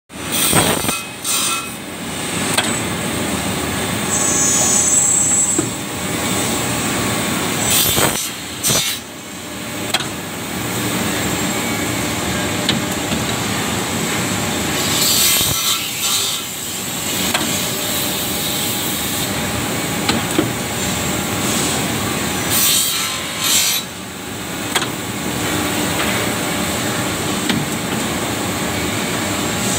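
Wood corner-block cutting machine running: a saw blade cutting through a wooden board with a steady noise. About every seven or eight seconds there are short hissing bursts from the air-cylinder clamps, one cutting cycle each.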